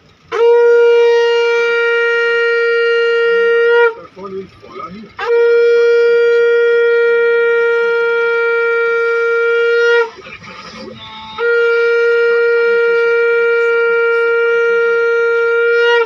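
Conch shell (shankha) blown in three long blasts, each a single steady note with a bright, buzzing ring. The second and third blasts are the longest, at about five seconds each, with short breaths in between. Three conch blasts mark the Hindu evening lamp-lighting prayer (sandhya).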